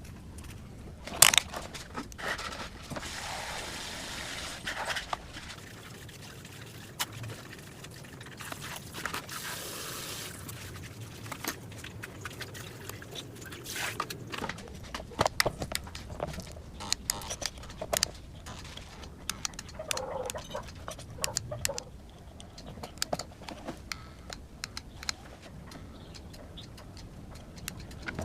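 Small tools and phone parts being handled in a repair: many scattered light clicks and taps over a faint hiss.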